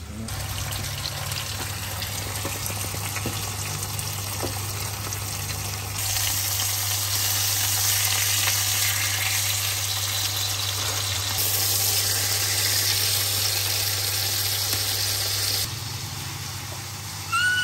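Beef steaks sizzling as they fry in a pan with garlic cloves, turned now and then. The sizzle is steady and grows louder in the middle stretch, over a low steady hum.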